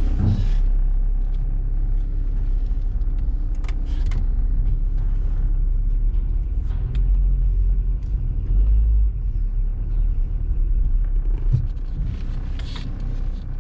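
Car driving: a steady low rumble of engine and road noise, with a few faint clicks.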